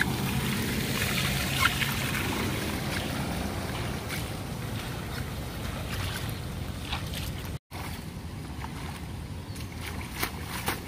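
Rainwater runoff rushing steadily along a street gutter. It cuts out for a moment about three quarters of the way through, and there are a few splashes near the end.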